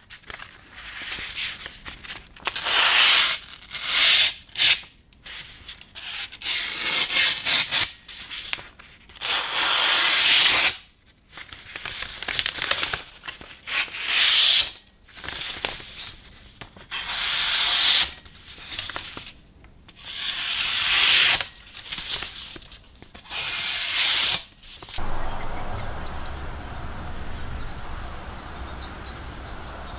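An abrasive rubbed back and forth by hand in irregular strokes, about one a second with short gaps, stopping about 25 seconds in, after which a low steady hum remains.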